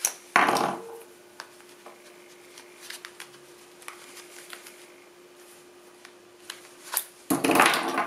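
Pocket gear (a flashlight and a leather wallet) being handled on a wooden table: scattered small clicks and knocks, with two louder rubbing noises, one just after the start and one near the end, over a faint steady hum.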